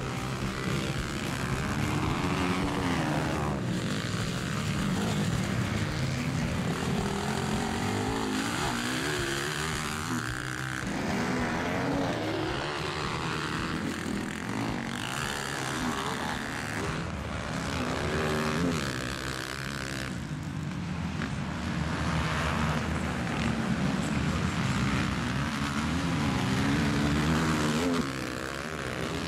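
Dirt bike engines revving up and down under racing load, the pitch rising and falling again and again through gear changes and throttle on and off for corners.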